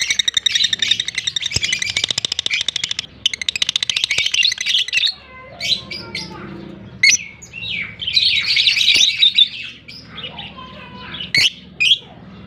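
African lovebirds chirping: a fast, continuous chatter for about the first five seconds, then scattered sharp chirps and a short burst of calls.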